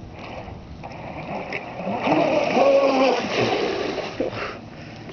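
Brushless electric RC boat running across the water with splashing spray, loudest in the middle of the run and fading near the end.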